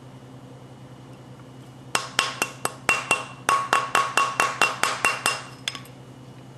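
A rawhide mallet tapping a copper wire ring down a steel ring mandrel: quick strikes about four a second with a short pause partway, each with a brief metallic ring. The taps start about two seconds in and drive the ring down the tapered mandrel toward a larger size.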